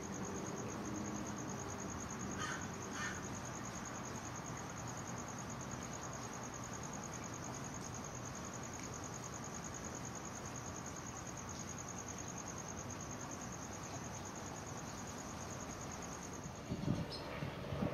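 A high-pitched insect trill, an even, rapid pulsing, keeps up until near the end. Two short bird chirps come about two and a half seconds in, and a few low bumps sound near the end.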